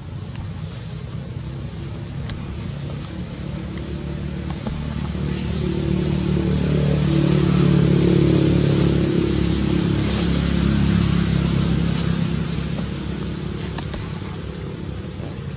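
A motor vehicle passing: its engine hum grows louder over several seconds, peaks about halfway through, then fades away.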